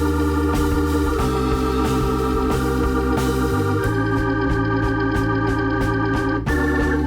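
Background music: organ-led instrumental with sustained chords over a moving bass line, the chord shifting near the end.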